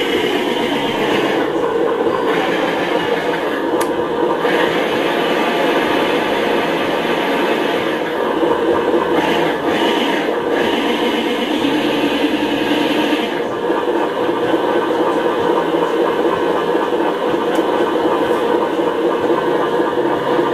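Electronic engine sound unit in a 1/10-scale RC Land Rover Defender D90 pickup, playing a simulated engine running through the model's small speaker; the sound holds steady, with its brighter upper part dropping away and returning a few times.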